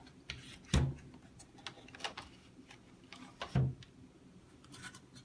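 Plastic parts of a Dyson AM06 fan being handled during reassembly: scattered light clicks and taps, with two louder knocks, one under a second in and one about three and a half seconds in.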